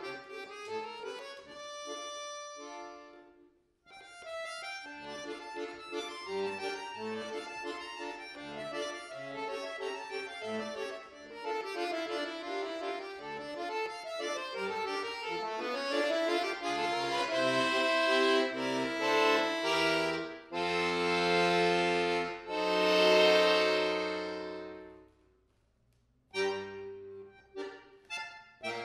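Solo bayan (chromatic button accordion) playing fast running passages. About three and a half seconds in it stops briefly; later it builds to loud held chords that die away into about a second of silence before the playing starts again near the end.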